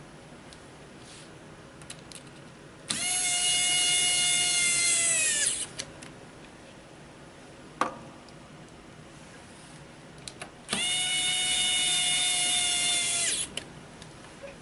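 Cordless electric screwdriver driving screws in two runs of about two and a half seconds each, a steady whine that drops in pitch as the motor stops, with small clicks between the runs.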